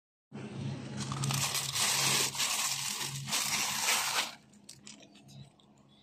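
Thin plastic food packaging crinkling and rustling as the bag is carried and handled close to the microphone, loud for about four seconds, then dying down to a low background.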